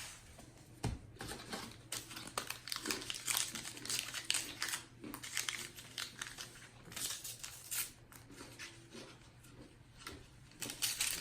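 Baseball cards and their foil pack wrappers being handled, with irregular crinkling and rustling and quick flicks of card stock.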